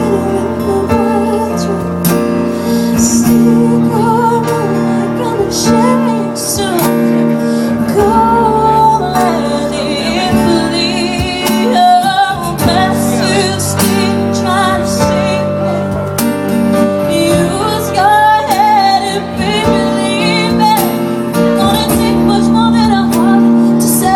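A woman singing a slow pop ballad live, with vibrato on held notes, over an instrumental backing.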